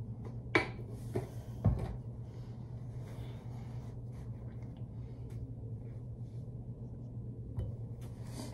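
Handling of a plastic bottle at a sink: a couple of sharp clicks from its cap in the first second or so and a knock as it is set down on the counter, then soft rubbing and small knocks over a steady low hum.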